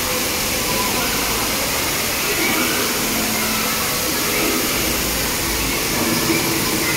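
Steady rush of water spraying from splash-pad fountains in a large indoor pool hall, with faint distant voices of bathers.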